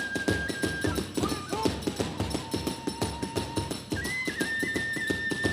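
Kagura festival music: a bamboo transverse flute holds long high notes, dropping lower mid-way and stepping back up near the end, over fast, steady taiko drumming and hand-cymbal beats.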